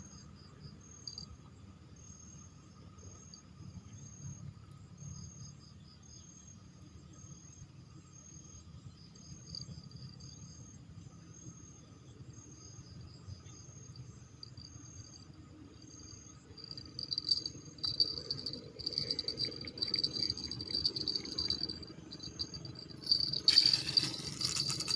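Insects chirping: a high chirp repeating about once a second over a steady shrill trill. About two-thirds of the way in, louder clicking and rattling sounds join, with a brief loud rushing noise near the end.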